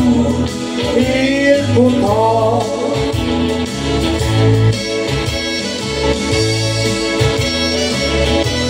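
Backing-track music for a slow Swedish ballad playing an instrumental passage between verses, with a bass line and sustained chords. A sung or lead melody line bends and trails off in the first two seconds or so.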